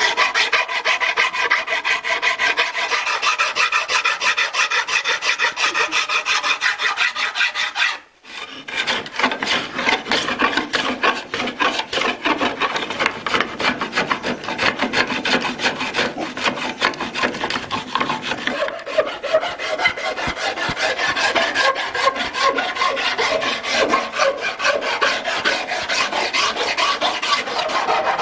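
Steel hand file scraping along the edge of a pallet-wood paddle in rapid back-and-forth strokes. It stops briefly about eight seconds in, then carries on.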